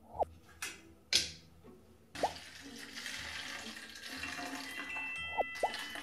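Liquid poured from a glass into a plastic spray bottle, starting about two seconds in as a steady splashing pour that grows louder. Before it come short pop sound effects and two sharp clicks, and soft chime-like music notes enter near the end.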